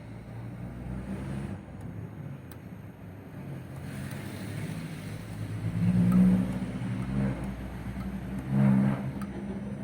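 A motor running steadily with a low hum, swelling louder twice, about six seconds in and again near nine seconds.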